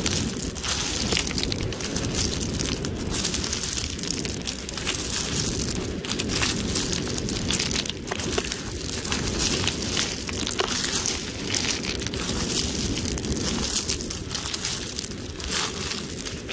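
Smooth, rounded beach pebbles clicking and clattering against each other in irregular handfuls as a hand sifts through them, over a steady low rumble of wind on the microphone.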